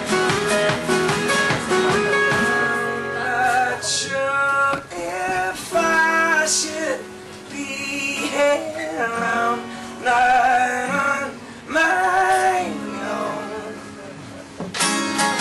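Live acoustic band: several acoustic guitars and a resonator guitar strummed together, with voices singing in phrases from about two seconds in.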